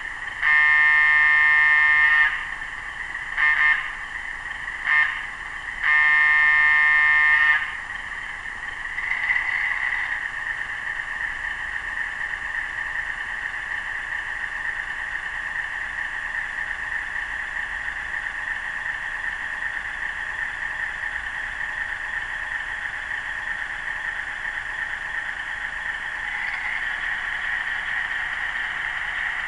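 LokSound Select decoder in an HO-scale Atlas RS-1 model playing its Alco 244 12-cylinder diesel sound set through the model's small speaker. The horn sounds four times, long, short, short, long, in the first eight seconds. Then the engine sound swells briefly about nine seconds in and runs steadily as the locomotive moves.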